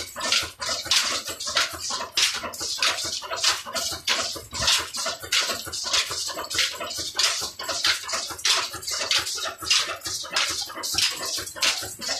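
Old single-cylinder Ruston & Hornsby-type diesel engine running steadily while driving a flour mill through belts and a line shaft. It makes an even, rhythmic beat of hissing puffs, roughly three a second.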